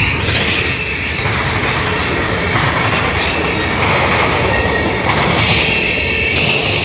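A freight train of tank cars and covered hoppers rolling steadily past close by: wheels rumbling and clattering on the rails, with a thin, steady, high wheel squeal over it.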